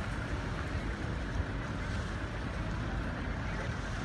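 Steady wind rushing and buffeting the microphone with a low fluttering rumble, aboard a cruise ship under way at sea.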